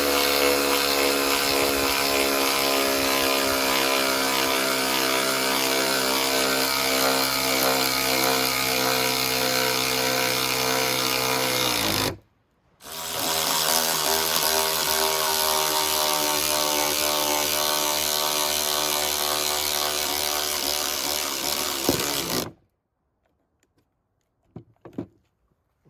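Two cordless 3/8-inch ratchets, one after the other, driving lag screws into a 2x4 under load. Each runs as a steady motor-and-gear whine whose pitch slowly falls as the screw bites deeper: the first for about thirteen seconds, then a brief stop, then the second for about ten. A few faint knocks follow near the end.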